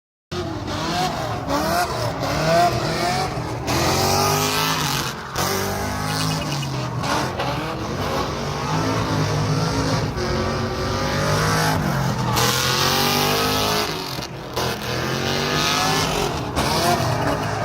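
Car engine revving up and down repeatedly, with tyre squeal.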